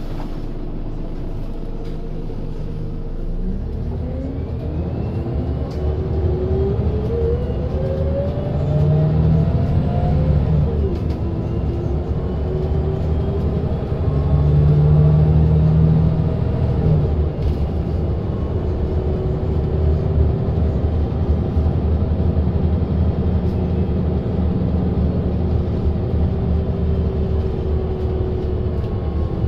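Scania Lahti Scala L94UB city bus heard from inside the cabin, its nine-litre five-cylinder diesel and ZF Ecomat automatic gearbox pulling away from a stop. A few seconds in the drive noise swells, and a whine climbs steadily in pitch, dropping back at upshifts about eleven and seventeen seconds in. It then settles into a steady cruise.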